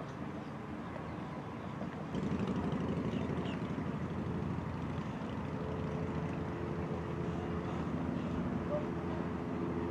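A center-console boat's outboard motor running at low speed as the boat is manoeuvred along a dock, a steady rumble that grows louder about two seconds in.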